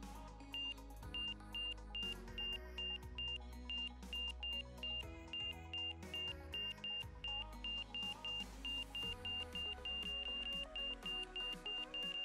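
Aircraft stall warning beeping in the cockpit during a power-on stall: a high beep that pulses faster and faster as the stall nears, running almost without a break near the end, over background music.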